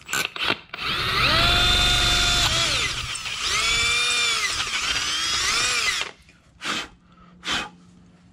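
Electric drill with a 7/32-inch bit drilling out an exhaust hole in a TH400 transmission valve body for a shift-kit mod. The motor whines in two runs, each spinning up and winding down, the second longer. A few clicks come before it and two knocks after.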